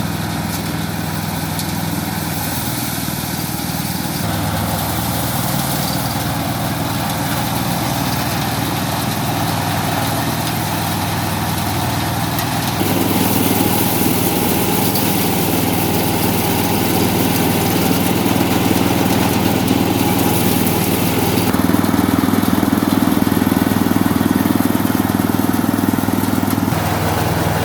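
Motorised rice thresher running steadily, its small engine humming continuously. The tone shifts abruptly several times, becoming louder and fuller from about halfway through.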